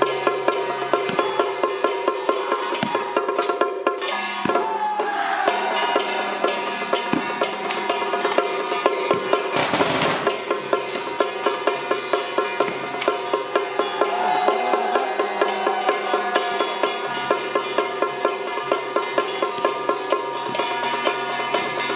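Traditional Taiwanese temple-festival music: a fast, even clicking beat over sustained melodic instruments, with a couple of falling pitch slides and a brief crash about ten seconds in.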